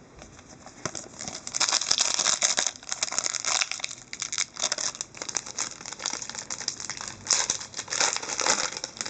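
Plastic wrapper of a hockey card pack crinkling irregularly as it is handled and torn open, starting about a second in.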